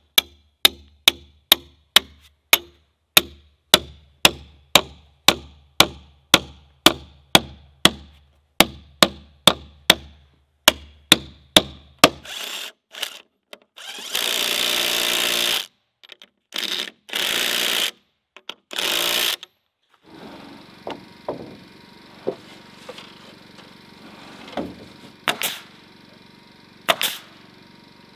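Construction tool sounds: about twelve seconds of sharp, evenly spaced knocks, two or three a second, then a power drill running in three short bursts, followed by a few faint knocks.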